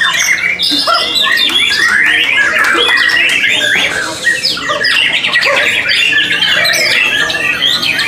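White-rumped shama (murai batu) singing a continuous, rapidly changing song of whistles, trills and harsh mimicked phrases, with other caged songbirds singing over it.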